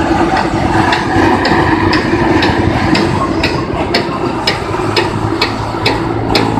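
Engine-driven rice thresher running steadily, with a regular sharp clicking about twice a second over the engine's hum.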